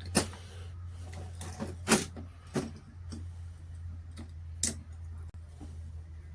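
Scattered sharp clicks and knocks of small metal parts and tools being handled while an electric mower motor and brake are taken apart, the loudest about two seconds in, over a steady low hum.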